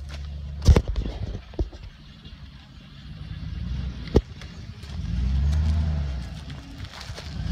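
Lifted pickup truck's engine running low, then revving up and back down for a couple of seconds about five seconds in as it moves along the dirt trail. A few sharp knocks, the loudest about a second in.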